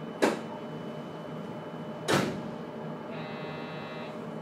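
Inside a JR Kyushu 811 series electric train car: a steady low hum of the train with short, sharp hisses of air, one just after the start and another about two seconds in, and a faint, brief high tone a little after three seconds.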